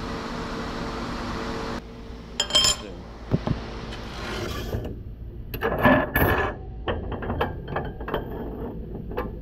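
A steady machine hum cuts off suddenly about two seconds in. It is followed by scattered metallic clinks and knocks of tools and metal parts being handled, with a run of small taps near the end.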